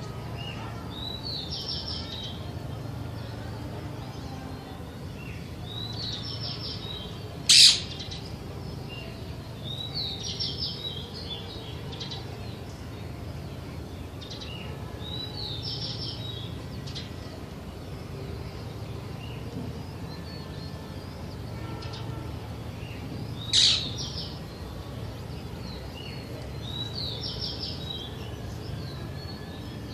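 Parakeet calling: two loud, sharp shrieks about sixteen seconds apart, with softer chirping phrases recurring every few seconds in between over a steady low background hum.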